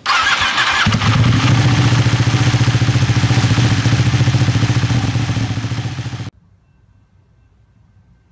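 A motorcycle engine being started, a brief whirring crank in the first second, then catching and idling loudly with a lumpy, pulsing beat. The engine sound cuts off abruptly about six seconds in, leaving only a faint low background.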